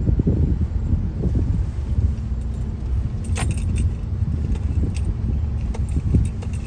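Road noise heard inside a moving car: a steady low rumble, with a steady hum joining about two seconds in. Light metallic jingling rattles, like keys, come and go over it, the loudest a little past three seconds in.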